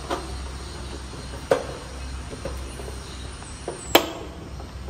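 A few sharp clicks and knocks, the loudest near the end, over a steady low hum.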